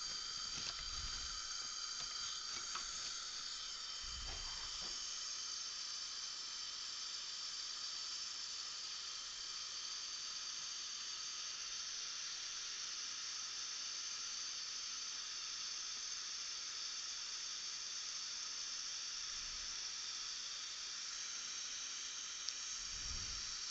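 Dental suction running with a steady hiss and a faint high whine.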